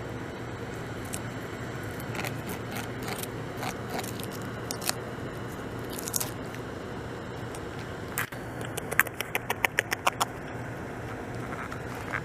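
A beaver gnawing bark off a log: scattered crunching, scraping clicks over a steady hiss, with a quick run of sharp clicks, about seven a second, near the end.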